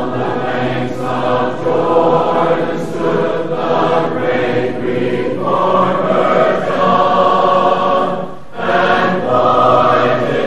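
Intro music of choir voices singing held chords, with a brief dip about eight and a half seconds in.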